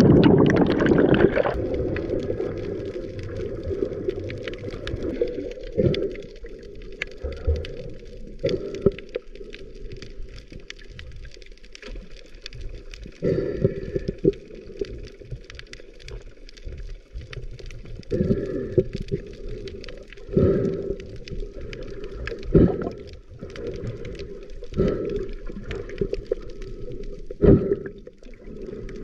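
Muffled underwater sound picked up by a camera below the surface while snorkeling: water gurgling and sloshing, dull and bass-heavy. It is loudest at the very start and fades over the first few seconds. Louder gushes and a few sharp ticks follow every few seconds.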